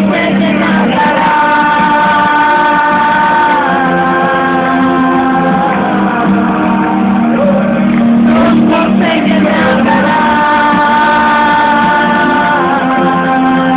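Live band music with a singer holding long sustained notes, twice, over sustained chords, with the ring of a large hall.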